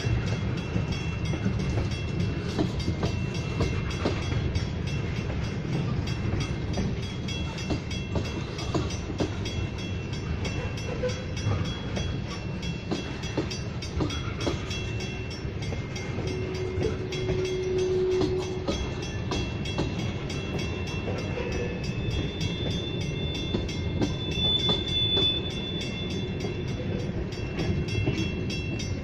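Tank cars of a freight train rolling past: a steady rumble of steel wheels on rail with a constant clicking, and now and then a faint high whine.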